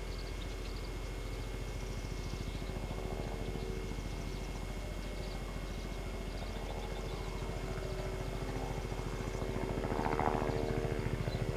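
Low engine drone with a fast, even pulsing throb, swelling louder about ten seconds in.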